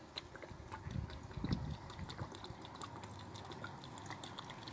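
A man gulping cool water from a canteen in one long drink, with a few heavy swallows about a second in.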